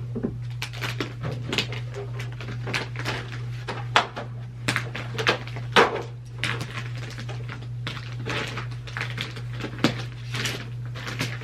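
Beads of a toy abacus being slid along their rods, clacking together in many irregular clicks, over a steady low hum.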